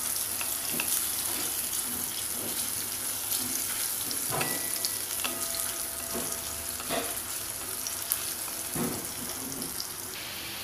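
Sliced onions sizzling in hot oil in a kadhai, with a steady hiss, stirred with a spatula that scrapes the pan a few times.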